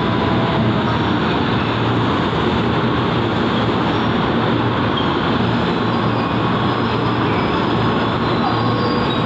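Electric commuter train running slowly past the platform, a steady loud rumble of wheels on rails and running gear, with a thin high tone, like a faint wheel squeal, coming in past the middle.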